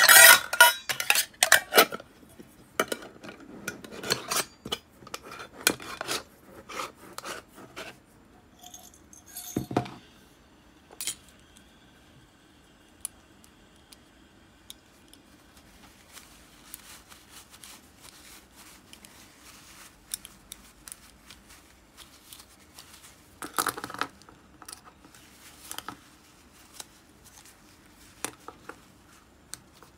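Glass jar of cleaning liquid and small metal reel parts clinking and clattering as the jar is handled, loudest in the first couple of seconds, with a single knock about ten seconds in. Then soft rubbing and small clicks as an Abu Garcia Ambassadeur 5500C side plate is handled and wiped with a cloth.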